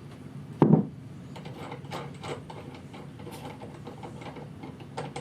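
Hand tools on an arrow saw's arbor: a single sharp knock, then light scattered clicks of the wrenches working the 3/4 inch arbor nut loose while an Allen wrench holds the arbor still.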